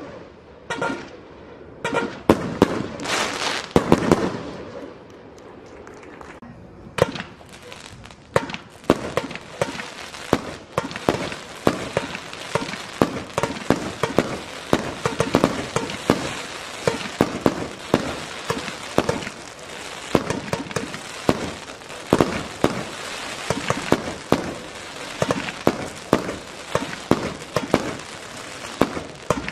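Fireworks going off: a few loud bangs in the first seconds, then from about seven seconds in a dense, continuous run of rapid pops and crackling.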